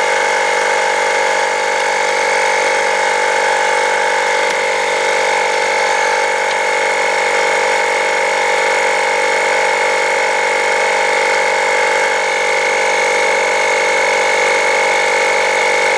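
Loud, steady mechanical drone with several fixed pitches, unchanging throughout.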